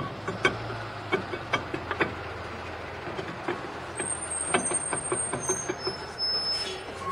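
A new steel brake drum being slid over the rear brake shoes of a 2009 Chevy Silverado and turned by hand, giving a run of short metallic clicks and knocks. The shoes are set a little too tight, so the drum catches as it goes on. Under it runs a steady low hum from a running vehicle.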